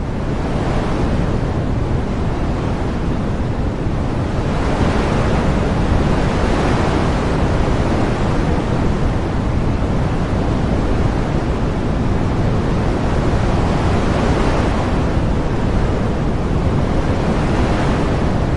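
Wind blowing in gusts: a steady rushing noise that swells and eases every few seconds.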